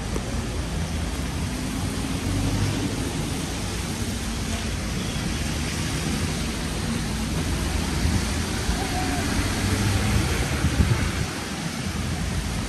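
Rainy city street ambience: a steady hiss of rain and wet road noise, with the low rumble of traffic swelling as vehicles pass.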